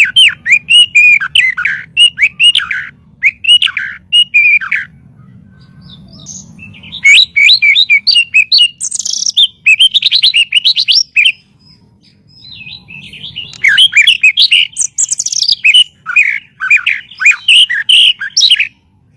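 White-rumped shama (murai batu) singing in three bursts of rapid, varied whistled notes, separated by short pauses.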